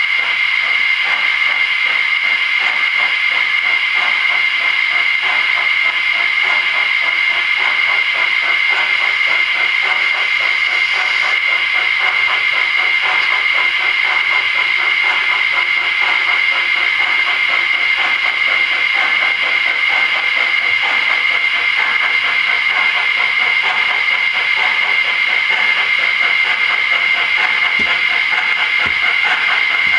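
A model steam locomotive's sound effect gives a standing engine's steady steam hiss, loud and unbroken, with a high ringing note in it.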